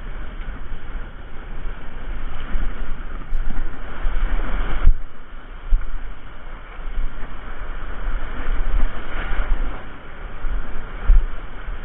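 Shallow surf washing and foaming over reef, surging louder and softer, with wind rumbling on the microphone.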